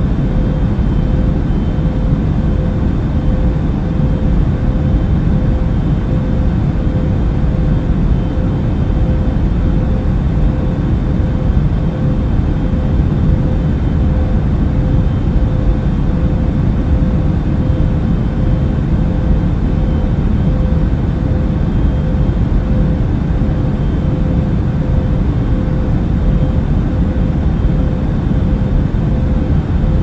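Steady low rumble of a car driving, heard from inside the cabin, with a faint steady hum above it and no change in speed.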